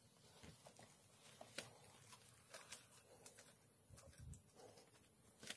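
Near silence: faint scattered clicks and knocks, with a soft low thump about four seconds in.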